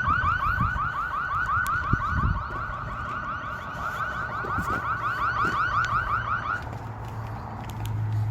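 Car alarm sounding: a rapid, even train of short rising chirps that stops suddenly about six and a half seconds in.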